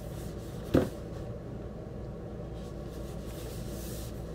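A cardboard shoe box being handled and turned over: one short, dull thump a little under a second in, over a steady low background hum.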